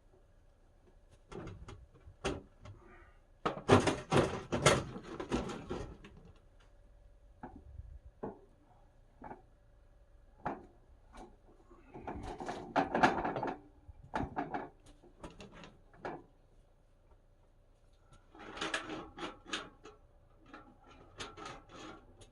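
Bouts of knocking, clattering and scraping as the wood stove's flue pipe is handled and taken apart, in several separate spells a few seconds apart.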